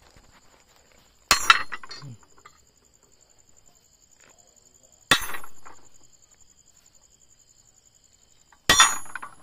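Hammer striking a centre punch on a steel baseplate three times, about three and a half seconds apart, each a sharp metallic clink with a short ring, marking hole centres. A cricket's steady high trill runs behind.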